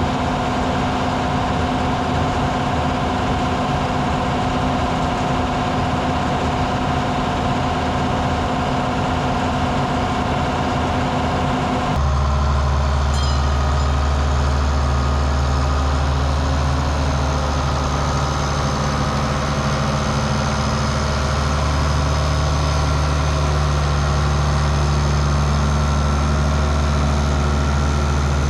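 Farm tractor engine running steadily, with a steady whine over it at first; about halfway through the sound changes abruptly to a deeper, even drone.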